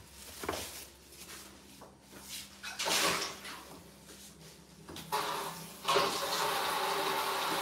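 A cloth rubbing over a granite countertop in short scraping swipes, one louder about three seconds in. From about six seconds a steady sizzle of food frying in the pot on the gas hob takes over.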